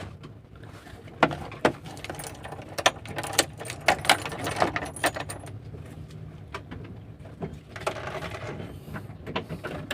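Hand work on wiring: a run of irregular sharp clicks and light rattles, with a steady low hum underneath.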